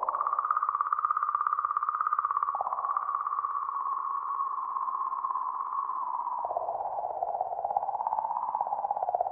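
Sonification of comet 67P/Churyumov–Gerasimenko's 'song': oscillations in the magnetic field around the comet, recorded by Rosetta's RPC-MAG magnetometer and sped up 10,000 times so they can be heard. It comes out as a buzzy, warbling, mid-pitched tone that wavers in pitch and dips lower in the last few seconds.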